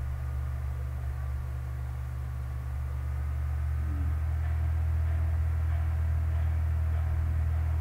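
Steady low electrical mains hum with faint hiss in a microphone recording, with a brief faint murmur about four seconds in.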